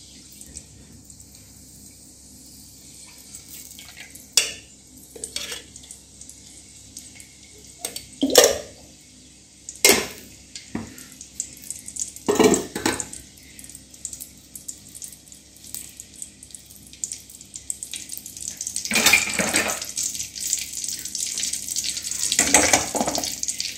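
A steel ladle clinking and scraping against an aluminium kadai as cooking oil is poured in and moved around the pan, with a handful of sharp metal clinks and busier scraping in the last few seconds as the oil heats.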